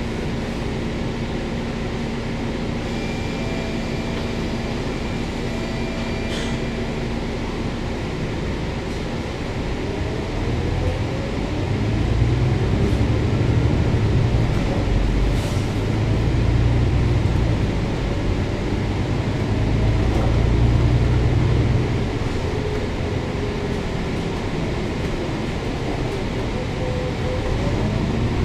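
Volvo B9TL double-decker bus's diesel engine heard from inside the cabin: a steady idle hum at first, then the bus pulls away about eight seconds in, the engine note rising, dropping back and rising again several times as the automatic gearbox shifts up, under a heavier rumble while it accelerates.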